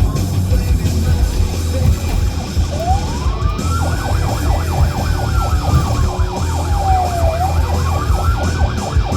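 Patrol car siren: about three seconds in a slow wail starts, rising, falling and rising again, with a faster yelping siren tone cycling several times a second alongside it. Underneath is a steady low rumble of engine and road noise.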